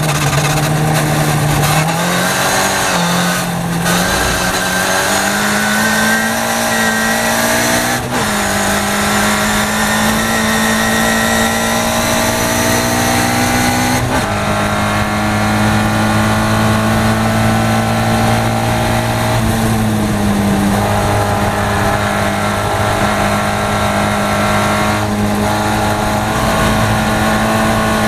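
Caterham race car's engine heard from inside the open cockpit, accelerating hard out of a slow corner. The engine note climbs and drops back with upshifts about three and a half, eight and fourteen seconds in, then holds steady at high speed, with a brief lift and pick-up around twenty seconds in.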